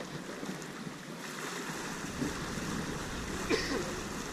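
Water rushing past the hull and wind aboard a J/111 racing sailboat under way: a steady, even rush, with a brief sharp sound about three and a half seconds in.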